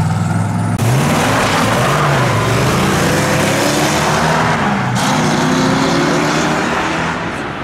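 A car pulling away and accelerating past, its engine pitch rising and dropping again as it changes gear, over loud road noise.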